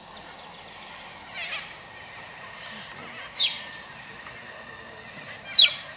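Honeyeater calling: three short, sharp notes falling in pitch, a couple of seconds apart, the last the loudest, over a steady background hiss.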